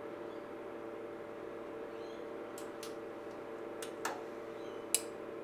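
Steady hum of the cooling fan in a Tektronix TM5006 test-equipment mainframe, with a few sharp clicks in the second half as the bench supply's front-panel controls are worked.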